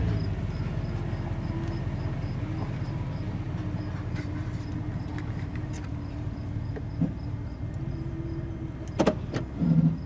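Chevrolet Silverado's 8.1-litre Vortec V8 idling in drive, heard from inside the cab, running rough with an uneven low pulsing: the engine is misfiring under load. A sharp click and a short thump near the end as the gear selector is moved toward reverse.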